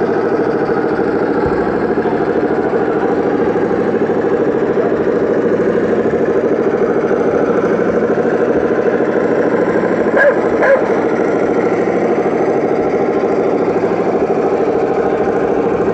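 Steady, fast-pulsing engine sound from RC scale model vehicles, running evenly throughout. Two short, sharp sounds stand out a little after the middle.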